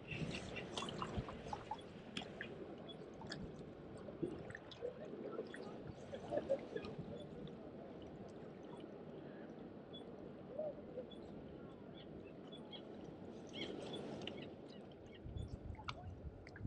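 Small waves lapping and gurgling at the water's edge, with scattered light clicks.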